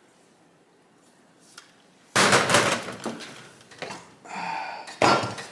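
Loud metallic clatter and knocks from hand-working the gearshift of a partly stripped motorcycle engine. A roughly one-second clatter comes about two seconds in, then lighter knocks, a ringing rattle, and a sharp clunk near the end.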